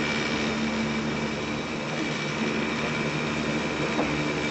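Hakone Tozan Cablecar running on its rails: a steady mechanical running noise with a constant low hum and a thin high whine.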